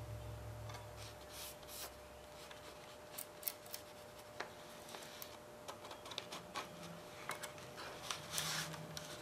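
Faint handling sounds: a thin cardboard pattern rustling and scraping against a rusted sheet-metal basket as it is wrapped and marked, with short scratches of a felt-tip marker. The loudest scrape comes near the end.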